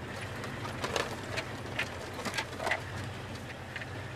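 Truck cab while driving a rough dirt track: the engine drones steadily, and several short knocks and rattles come as the truck bounces.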